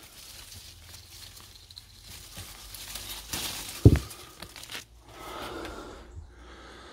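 Pear tree leaves and twigs rustling as a hand reaches in through the foliage, with one short, sharp crack about four seconds in as the pear is pulled off.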